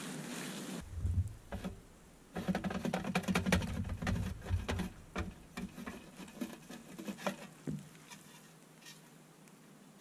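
Fabric rustling at first, then a run of metal clicks and rattles as parts of a Petromax Loki 2 wood stove are pulled out and handled. The rattles come thickest in the middle and thin out to faint ticks near the end.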